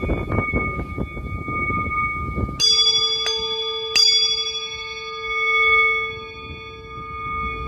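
Metal bells struck during a sound-healing session, over a high ringing tone that is already sounding. Before the first strike there is a rough low rattling. Then comes a strike about two and a half seconds in and two lighter ones soon after, and their tones ring on for several seconds.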